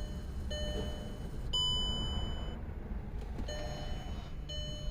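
An electronic warning chime, a short pitched ding repeating about once a second; one ding about a second and a half in is longer and louder. Under it is a low steady hum.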